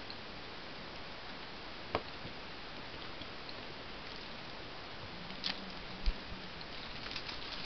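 A few light clicks and taps over a steady hiss, a cluster of them near the end: kittens' paws and claws on a plastic storage box lid.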